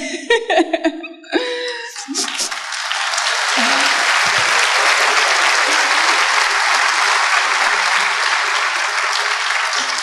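Audience applauding, building up about two seconds in and then holding steady.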